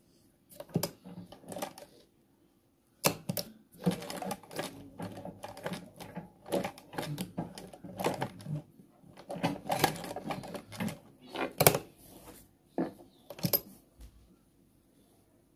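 Domestic sewing machine stitching fabric in stop-start runs, a fast clatter of needle clicks: a short run near the start, then after a pause a long run that stops about a second before the end.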